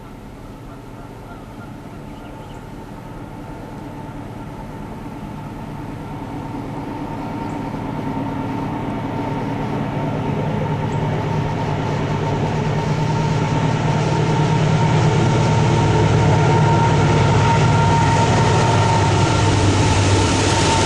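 Diesel locomotives leading an empty coal train, engines running as they approach: the sound grows steadily louder for about fifteen seconds, then holds loud as they draw level.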